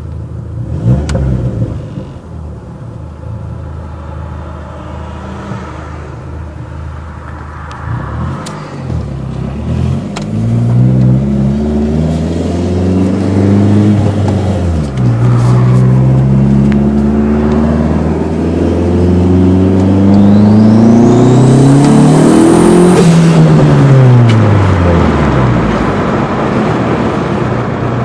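Dodge SRT-4's turbocharged 2.4-litre four-cylinder engine pulling hard under acceleration. The engine note climbs, drops sharply about halfway through as at a gear change, then climbs again with a high rising whine on top before falling away near the end.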